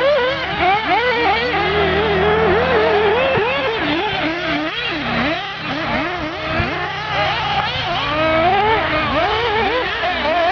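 Several radio-controlled off-road model cars racing, their small motors revving up and down rapidly with overlapping pitches that rise and fall constantly.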